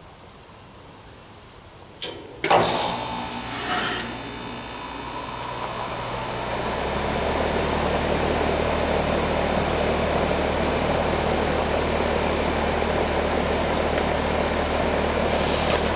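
2020 Tempstar heat pump outdoor unit starting in cooling mode: a sharp click about two seconds in, then the compressor starts with a loud surge. A deeper hum joins a few seconds later, and the unit settles into steady running.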